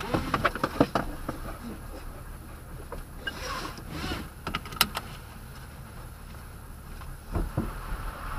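Pickup truck engine idling low, heard from inside the cab, with scattered knocks and clicks in the cabin: a cluster in the first second, a few sharp clicks around the middle and two dull thumps near the end.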